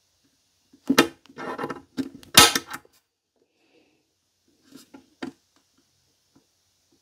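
Spring-loaded centre punch snapping against the panel as hole centres are marked: a few sharp clicks with rattling around them, the loudest about two and a half seconds in, then a few fainter clicks about five seconds in.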